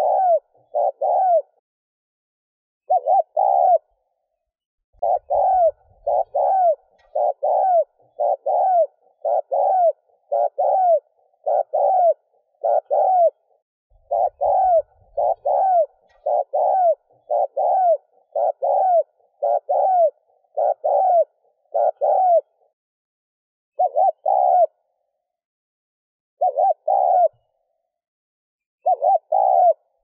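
Spotted dove giving rapid cooing (gù), a string of short arched coo notes about one and a half a second, in runs broken by brief pauses.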